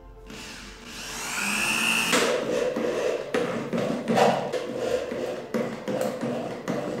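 Corded electric drill with a Phillips screwdriver bit driving a wood screw into a pine board. The motor whines rising in pitch for about the first two seconds, then runs unevenly with a rapid run of knocks as the screw goes in.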